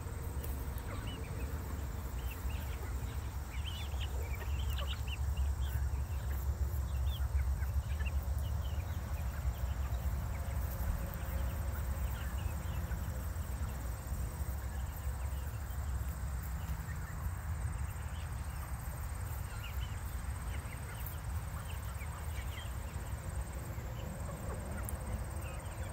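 A flock of young chickens calling as they feed: scattered short, high peeps and clucks, most of them in the first ten seconds or so, over a steady low rumble.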